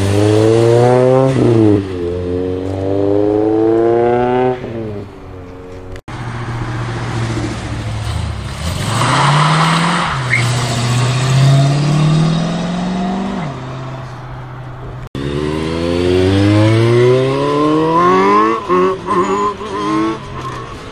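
Three vehicles in turn accelerating hard away, each engine rising in pitch through the revs and dropping at a gear change: first a Honda Civic coupe, then a compact pickup truck whose launch begins with a short rush of noise, then another car pulling away with a shift near the end.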